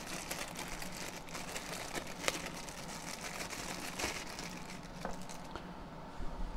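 Thin clear plastic bag crinkling and rustling as multimeter test leads are handled and pulled out of it, with a few sharper clicks; the crinkling thins out near the end.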